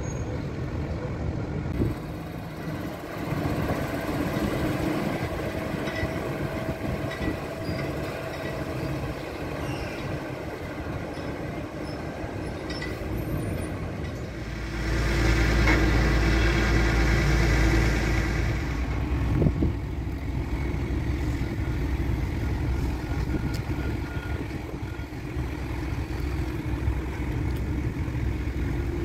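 Diesel engines of heavy trucks and cranes running steadily, with a low rumble that gets louder for a few seconds about halfway through.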